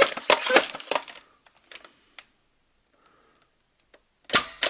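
Buzzbee AirMax 10 air-pressure dart blaster being pumped with quick, even strokes through the first second, then a sharp pop of released compressed air as it fires a dart near the end.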